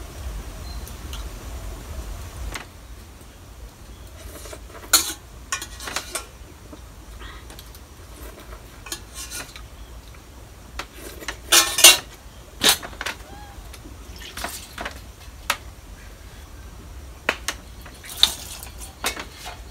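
Stainless steel bowl and plate clinking and clattering now and then as they are handled and set down, with the loudest clatter about halfway through.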